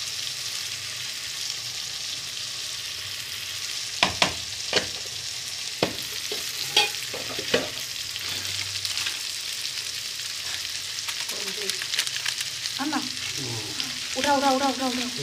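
Tomato, onion and peas sizzling in hot oil in a steel karahi over a gas flame, a steady hiss. Several sharp metal clinks of a steel spoon stirring against the pan come between about four and eight seconds in.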